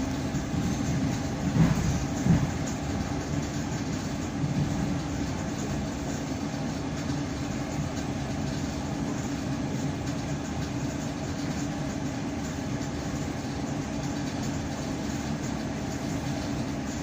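ED9M electric multiple unit running, heard from inside the carriage: a steady rumble of wheels on rails, with two sharper knocks of the wheels over rail joints early on, then even running.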